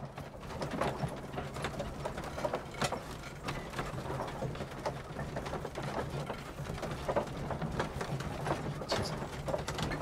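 Horse-drawn carriage in motion, heard from inside the cabin: a steady low rumble with scattered creaks and knocks.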